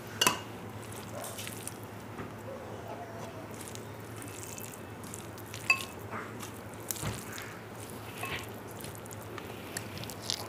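Fingers mixing rice and curry on a steel plate: soft squishing, with a few sharp metallic clinks from the plate, the loudest about a quarter second in and another just before the six-second mark.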